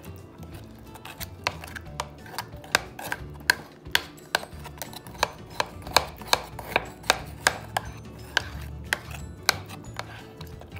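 Metal spoon mashing and stirring banana and peanut butter in a mixing bowl, knocking sharply against the bowl about two or three times a second.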